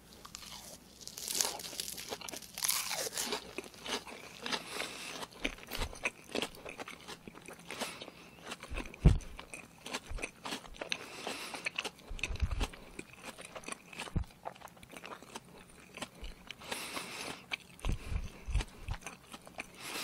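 Close-miked chewing of a crisp pan-fried ragworm pancake (jeon), cooked until partly charred: crunchy bites, brightest in the first few seconds, then steady chewing clicks with a few low thumps later on.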